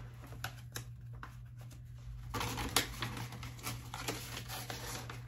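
Hands handling cross-stitch materials: scattered light clicks and taps, with a longer rustle about two seconds in lasting about a second, over a steady low hum.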